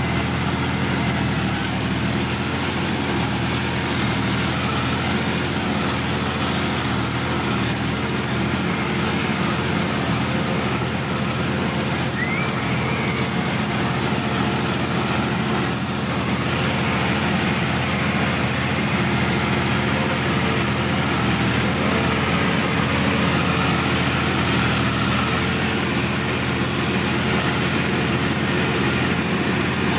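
Sonalika DI-50 RX tractor's diesel engine running steadily under way, heard from the driver's seat, an even drone throughout.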